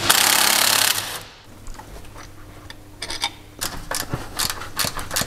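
A loud burst of hiss lasting about a second, then a socket ratchet clicking in quick, uneven runs as a bolt on the transfer case mount bracket is undone.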